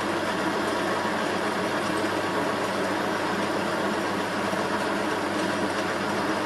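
Metal lathe running steadily while a carbide CCMC insert turns down a forged steel drag link: the even hum of the motor and gearing together with the noise of the cut as steel chips come off.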